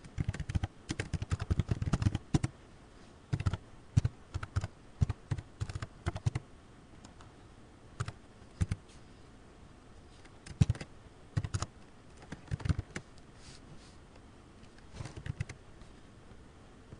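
Computer keyboard typing: a fast run of keystrokes at first, then short clusters of keys with pauses between.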